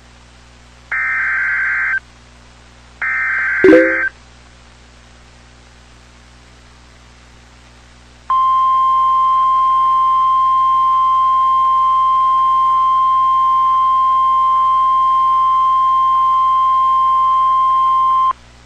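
Two bursts of Emergency Alert System SAME header data, each a harsh digital warble about a second long, the second ending in a sharp loud click. After a pause of about four seconds comes the National Weather Service 1050 Hz warning alarm tone, one steady tone held for about ten seconds.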